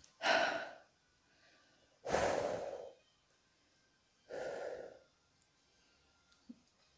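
A woman breathing out heavily three times, each breath about half a second to a second long and about two seconds apart, while holding back burps after chugging a carbonated soda.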